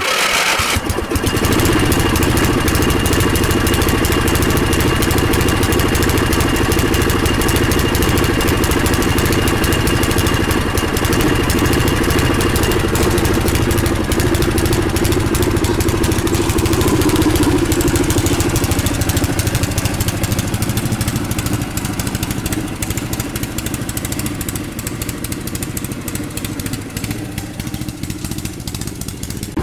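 The 11 hp engine of a 1979 Craftsman riding lawn mower, converted to run on propane, running steadily. It grows fainter over the last several seconds as the mower drives away.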